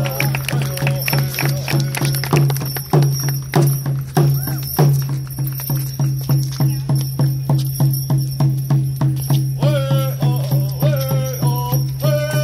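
Hoop-dance music: a drum beaten in a steady, fast rhythm, with singers' voices at the start and again from near the end.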